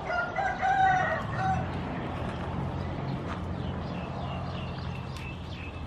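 A rooster crowing once, a call of about a second and a half, followed by a run of faint, short, high chirps.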